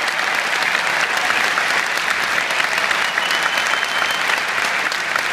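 A large arena crowd applauding steadily, a dense patter of many hands clapping. A thin high tone sounds for about a second, three seconds in.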